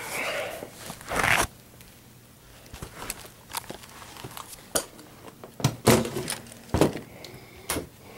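Handling noises: scattered clicks, knocks and scrapes, with a longer scrape about a second in.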